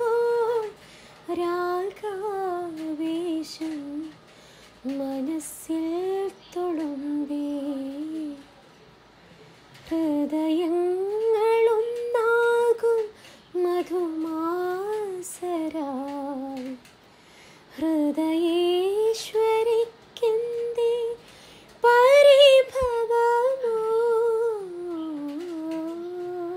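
A woman humming a song's melody alone, with no accompaniment, in smooth gliding phrases broken by short pauses.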